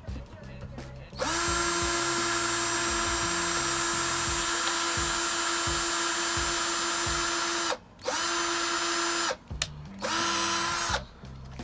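Cordless 20V drill running against a ceiling trim strip, putting up hooks: one long, steady whine of about six seconds, then after a brief stop two short runs.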